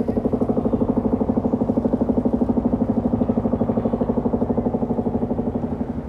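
Mantis demolition hammer pounding the concrete of a smokestack: a rapid, steady hammering of about thirteen blows a second that starts abruptly and stops after about six seconds.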